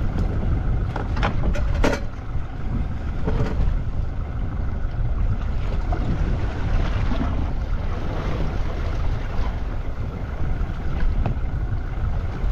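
Steady low rumble aboard a fishing boat at sea, with wind buffeting the microphone. A few sharp knocks come about one to two seconds in.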